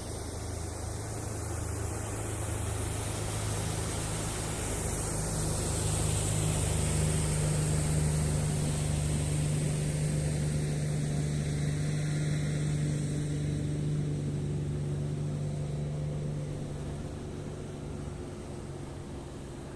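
A passing engine: a steady low hum swells to its loudest about halfway through, then slowly fades.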